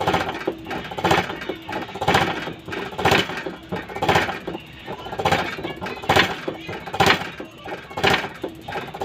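Rebuilt 4HL1 diesel injector on a hand-lever nozzle pop tester, giving a short spray burst about once a second as the lever is pumped.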